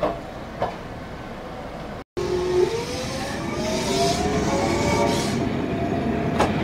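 A Toyohashi Railway tram passes close by while negotiating an 11 m-radius curve. Its wheels squeal on the tight curve with several shifting, rising tones over a running rumble and a hiss. There are two knocks in the first second, and the sound cuts out for a moment about two seconds in.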